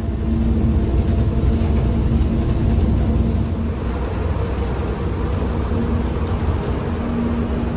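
City transit bus heard from inside the cabin: its engine and running gear making a steady low rumble with a steady hum over it.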